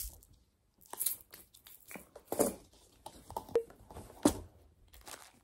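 Packing a cloth tote bag by hand: about five short rustles and knocks, spaced a second or so apart, as the fabric bag is handled and small items such as a jar of pearls go into it.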